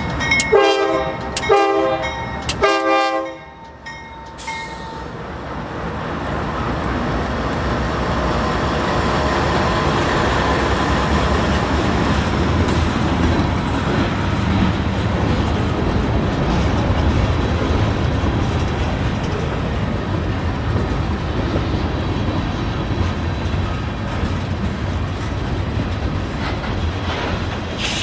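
Air horns of two Norfolk Southern GE AC44C6M diesel locomotives sound a series of short blasts in the first three seconds, a brief salute from the crew. The locomotives then pass close by, and the freight cars roll past with a steady rumble and clickety-clack of wheels on the rail joints.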